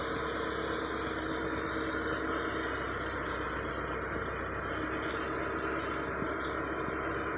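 Steady mechanical hum with a continuous hiss and an even low drone.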